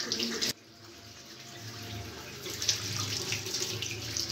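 Water running from a sink tap and splashing over hands, growing louder about two seconds in.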